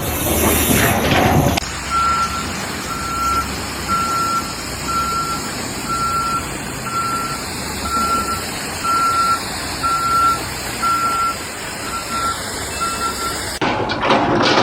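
Vehicle reversing alarm beeping in a single steady tone about once a second, over a constant background rumble. Louder, noisier sound comes before the beeping starts and again after it stops near the end.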